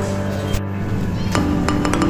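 Background music: held notes with light percussive hits over them.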